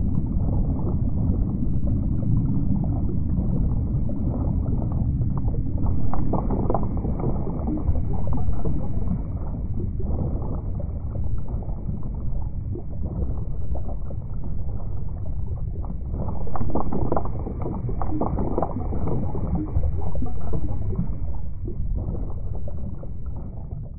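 Water lapping and sloshing: a steady low rush with irregular splashing surges.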